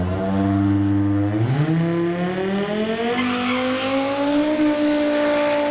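Race car's engine pulling hard off the drag-strip start line: held at steady revs for about a second and a half, then climbing steadily in pitch as the car accelerates away, and levelling off near the end.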